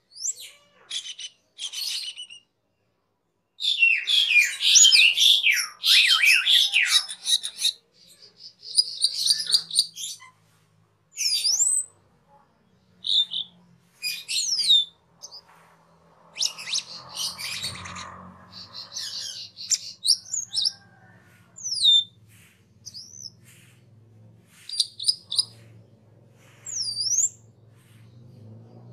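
Asian glossy starling (cucak keling) calling: sharp, high whistles and chirps with quick up-and-down sweeps, in short separate phrases. About four seconds in there is a dense run of overlapping chatter that lasts about four seconds.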